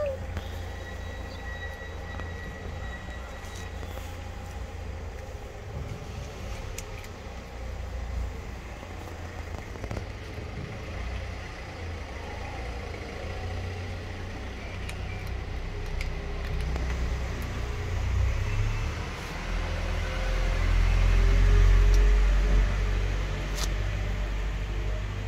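Steady low rumble of street traffic, swelling to its loudest as a vehicle passes about 20 seconds in. A few faint crunching ticks come through, from cats chewing dry kibble.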